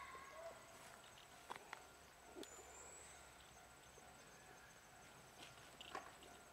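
Near silence: faint outdoor ambience with a steady high-pitched whine and a few faint clicks.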